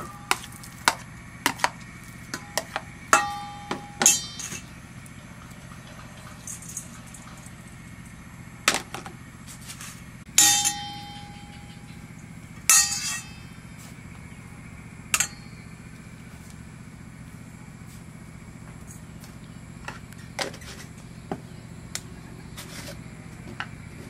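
Metal spoon knocking and scraping against a stainless steel mixing bowl: a scatter of sharp clinks, the loudest about four, ten and thirteen seconds in, some ringing on briefly. A faint steady low hum runs underneath.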